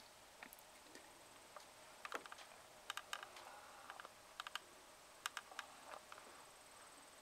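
Near silence with faint, scattered clicks and ticks, a few coming in quick runs.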